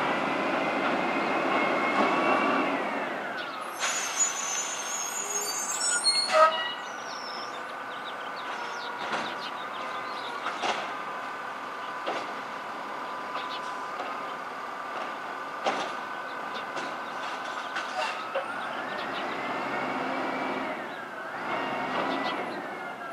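Automated side-loading recycling truck at work: its engine whine rises and falls as it revs to work the lifting arm, once at the start and again near the end. About four seconds in there is a two-second burst of air hiss, followed by scattered clanks and a steady engine whine between the revs.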